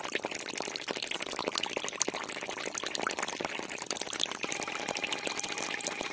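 Wet slurry bubbling and fizzing with a dense crackle of tiny pops as a thin metal rod is worked through it, raising a froth of small bubbles.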